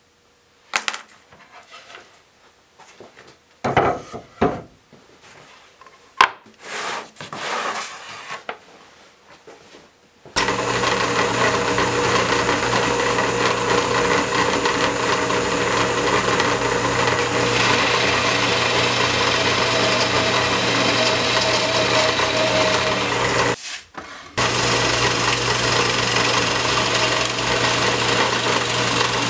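A few scattered knocks and scrapes of a wooden board being handled and marked by hand. Then, about ten seconds in, a drill press runs steadily and bores into the wooden board, with one short break a little before the end.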